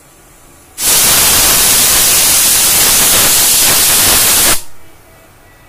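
Prestige Popular pressure cooker whistling: a loud hiss of steam forced out under the pressure weight. It starts abruptly about a second in, holds steady for about four seconds and cuts off suddenly. It is the one whistle the cook waits for, the sign that the cooker has come up to pressure and the cooking is done.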